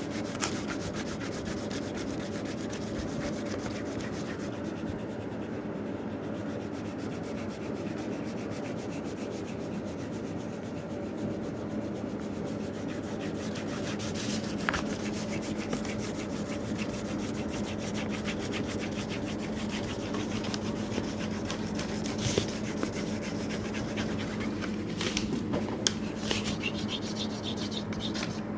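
A crayon scribbles rapidly back and forth on paper, shading a large area with a continuous scratchy rubbing. A steady low hum runs underneath.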